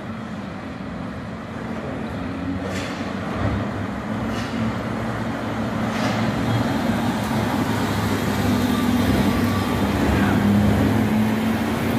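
Gold Lamborghini Gallardo's V10 engine running as the car drives slowly up the street, growing steadily louder as it comes closer. Three short clicks sound in the first half.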